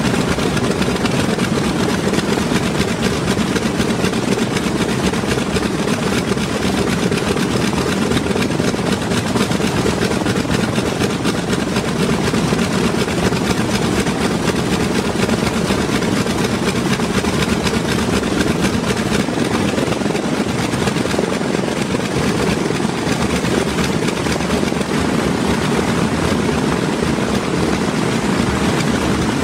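Piston engines of a propeller airliner running steadily, a low, even drone.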